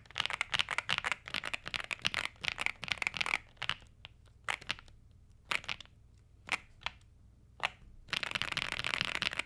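Typing on a Yunzii AL75 aluminium 75% mechanical keyboard in stock form, with long-pole Cocoa Cream V2 switches. Fast continuous keystrokes for about three seconds, then single presses about a second apart, then a quick flurry near the end. The keys sound loud, marbly and poppy, a little thocky.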